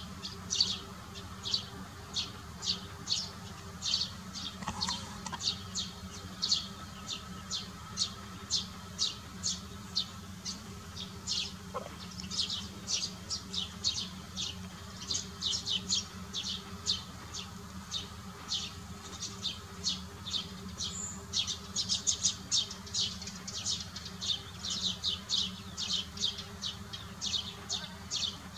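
A bird chirping over and over, short high calls at about two a second, with a faint steady low hum underneath.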